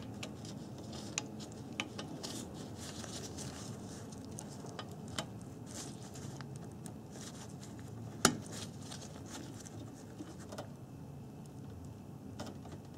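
Faint handling noise of a gloved hand working the plastic electrical connector onto the radiator fan motor: small rustles and light taps, with one sharper click about eight seconds in.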